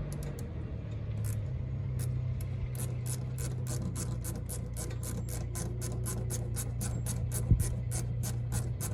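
Background music with a quick, steady ticking beat, about four ticks a second, over a low steady hum.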